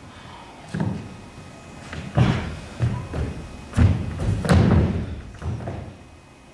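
About six irregular heavy thuds of performers' bodies and feet on a stage floor, the loudest around four seconds in.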